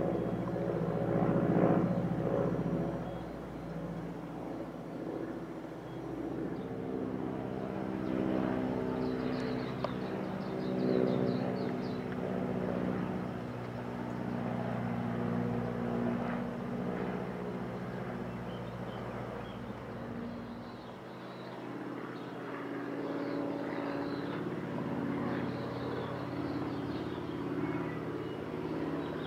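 Piston engines of vintage propeller aircraft flying overhead, a steady drone. First a low-wing warbird trainer, then after a cut a biplane.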